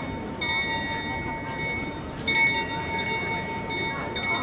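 Bell of the Prague Astronomical Clock struck three times, about two seconds apart, each stroke ringing on until the next: the tolling by the clock's Death figure during the hourly procession of the apostles. A crowd murmurs underneath.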